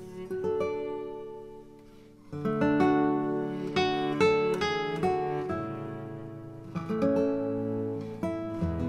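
Acoustic guitar music: plucked notes and strummed chords that ring and fade, quieting briefly and coming back louder a little over two seconds in.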